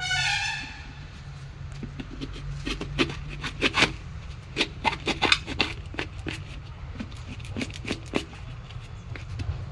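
A sickle blade knocking and prying at the hard woody shell of a calabash-tree (kamandal, beggar's bowl) fruit: a run of sharp, irregular cracks and clicks over several seconds. The shell is very hard and resists the sickle.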